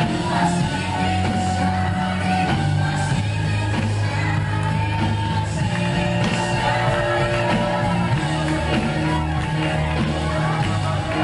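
Live worship band playing a congregational song: keyboard and drums with singers, over sustained low bass notes that change every couple of seconds.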